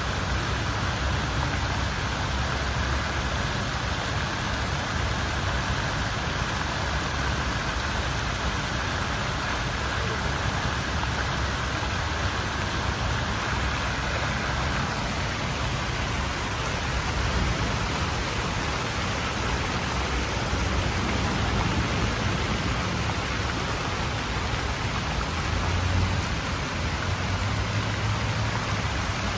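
Fountain water pouring from a row of spouts and splashing into the pool below: a steady, even splashing hiss.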